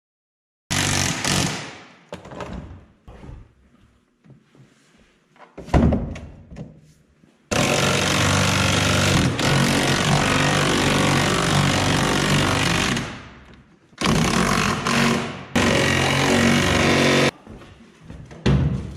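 A power tool driving bolts, running in several bursts that start and stop abruptly. The longest run lasts about five seconds, near the middle, and two more runs follow close after it.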